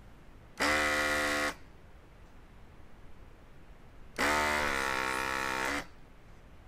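An electric vacuum desoldering gun's pump buzzing twice, a short burst then a longer one that sags slightly in pitch, as it sucks molten solder off the light-bulb leads.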